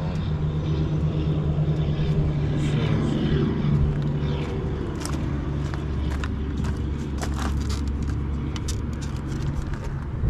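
Diesel semi-truck engine idling steadily, with a low hum whose pitch balance shifts about halfway through and a few light clicks and knocks in the second half.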